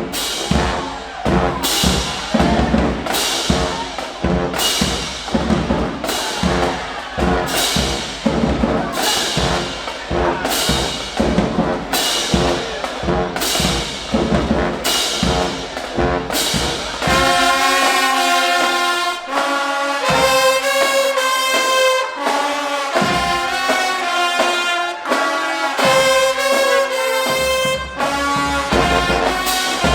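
High school marching band playing: brass over a drumline, with strong accented hits about once a second. About two-thirds of the way in it moves to long held brass chords with the drums mostly dropping out, and the heavy beat comes back near the end.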